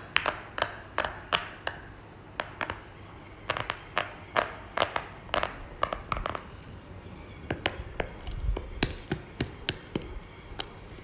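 Rapid sharp clicks and taps from a fidget toy being worked by hand, coming several a second in uneven runs.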